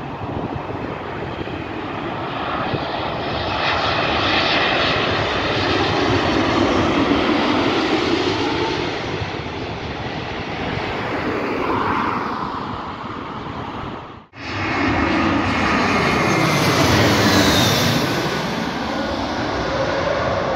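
Boeing 787-8 airliner on final approach and landing, its jet engine roar swelling and easing off. About two-thirds of the way through there is a sudden cut to another jet airliner passing low overhead, its roar rising to a peak with a high whine that falls in pitch as it goes by.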